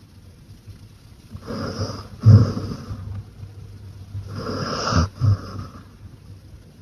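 A beagle snoring in her sleep: two snoring breaths about three seconds apart, the first with a sudden loud burst partway through.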